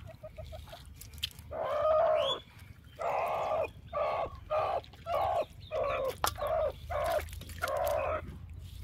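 A farmyard fowl calling: one longer call about a second and a half in, then a run of about seven short calls in a steady rhythm.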